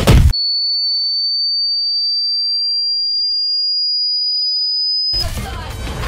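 A short hit sound as a kick lands, then a single high, pure ringing tone that holds for about five seconds, creeping slightly up in pitch, the ear-ringing effect used after a blow. It cuts off suddenly about five seconds in, and music comes back.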